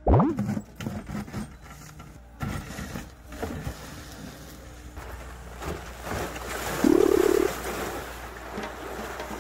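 Mini excavator's diesel engine running while its bucket smashes through a frozen pond, ice cracking and crunching with water sloshing. A quick rising whoosh opens it, and a brief loud whine comes about seven seconds in.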